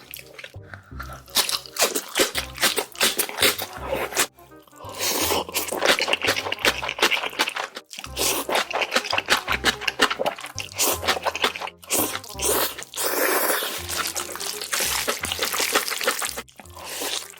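Close-miked noodle eating: wet slurping and chewing in quick smacks and clicks, over background music with a repeating low bass.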